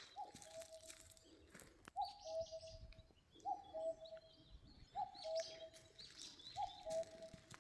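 A bird repeating a two-note call, a short higher note dropping to a longer lower one, about every second and a half, with smaller birds chirping faintly in the background.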